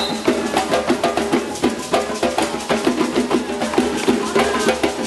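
Percussion-led music: drums and sharp wood-block-like strikes in a fast, dense rhythm, with a pitched melody moving over them.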